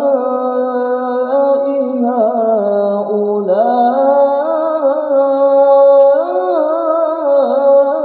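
A man reciting the Qur'an in melodic tilawah style, drawing out long vowels with wavering, ornamented turns of pitch.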